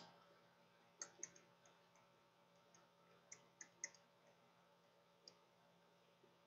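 Near silence with scattered faint clicks of a stylus tapping on a drawing tablet.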